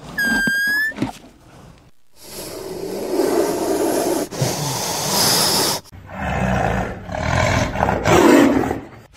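Farm animal calls: a short, high whistle-like call, then two long, harsh, rasping calls one after the other.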